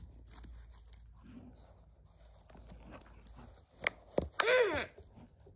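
Faint rustling and handling of a stick puppet's wooden rods and cloth. Two sharp clicks come a little before the four-second mark, followed by a short cry of 'ah' in a child's voice.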